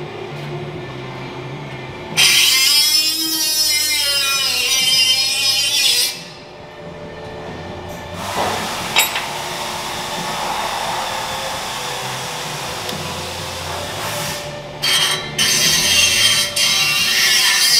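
Power tools cutting and shaping steel exhaust pipe. A shrill whining tool with a wavering pitch runs for a few seconds, and near the end an abrasive cut-off wheel grinds through the metal.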